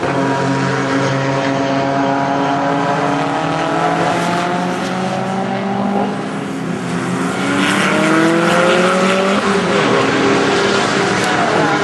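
Racing car engines on a circuit, including a red Alpine A310 replica, heard as several cars run close together. The engine notes rise and fall with gear changes, then climb steadily in pitch as the cars accelerate past, loudest from about eight seconds in.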